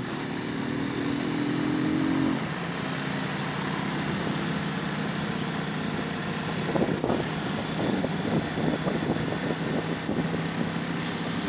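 Motorcycle engine running while riding along a road, its pitch climbing for the first couple of seconds as it speeds up, then settling and holding steady. From about seven seconds in, rough irregular buffets on the microphone are added over the engine.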